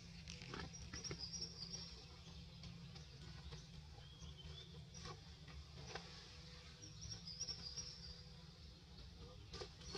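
Quiet outdoor ambience with a low steady rumble, faint high-pitched chirping in two short spells, and a few soft clicks.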